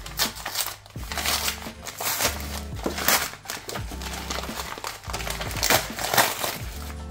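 A mailer bag crinkling and rustling as it is opened by hand, loudest about three seconds in and again around six seconds, over background music.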